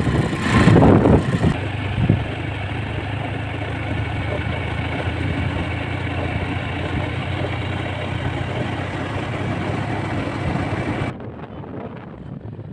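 Steady engine and road noise of a vehicle driving along a road, with louder uneven bursts in the first second or so. About eleven seconds in the sound drops abruptly and turns quieter and duller.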